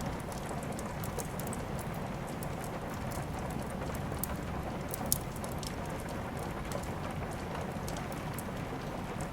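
Steady rain with a wood fire crackling over it: scattered sharp pops, the loudest about five seconds in.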